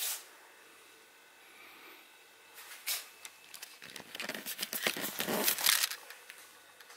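Handling noise from a handheld camera: a single click about three seconds in, then a couple of seconds of rustling and knocking as it is swung round and turned.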